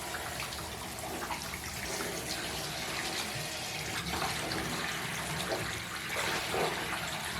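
Water splashing and running in a bathtub as soaked fleece liners are squeezed out by hand, with a few louder splashes about four, five and a half and six and a half seconds in.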